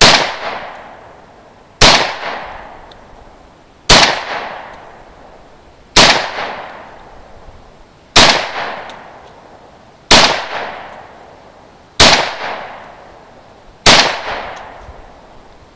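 Tokarev TT-33 pistol (7.62×25mm Tokarev) firing eight single shots about two seconds apart. Each sharp crack is followed by a long echo that dies away over a second or so.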